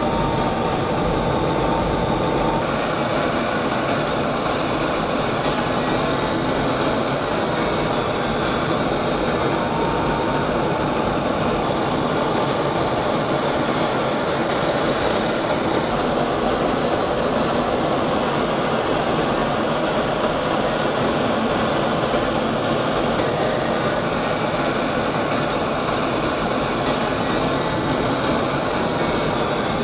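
Twin General Electric F414 turbofan engines of a KAI KF-21 Boramae fighter running steadily, as a continuous dense rushing noise with a faint high whine over it.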